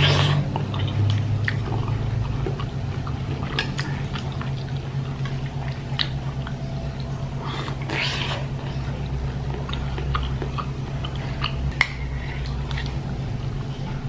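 Close-up eating sounds: biting into and chewing a large bakso meatball, with scattered wet mouth clicks and a single sharp click near the end, over a steady low hum.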